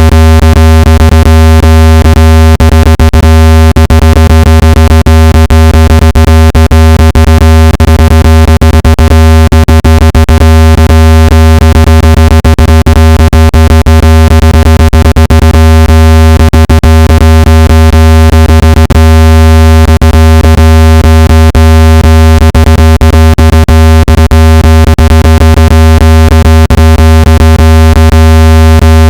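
Loud, steady low-pitched electronic tone with a stack of overtones, broken by frequent irregular clicks: a speaker-cleaning tone made to vibrate dust and moisture out of a phone speaker.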